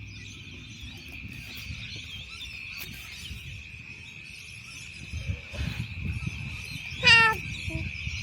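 Steady high-pitched chirring of insects, likely crickets, with some low rumbling, and one short, loud, high-pitched cry about seven seconds in.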